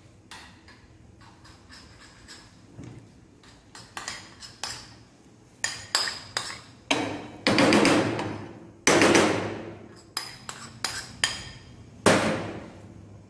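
Metal spoon knocking and scraping against a ceramic bowl while mixing egg yolk with grated parmesan and spooning it out onto pasta in a pan. It makes a run of sharp clinks, sparse at first, then louder and closer together in the second half.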